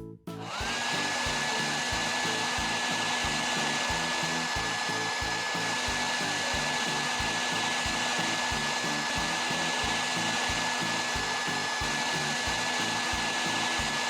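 Hair dryer switched on: its whine rises to a steady pitch within the first second, then it blows steadily. Background music with a regular beat plays underneath.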